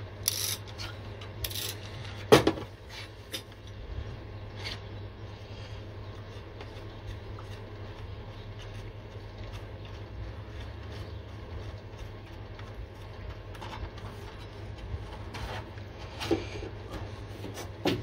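Sparse clicks, knocks and rubbing from hand tools working at a crankshaft pulley and degree wheel, the sharpest knock about two seconds in, over a steady low hum.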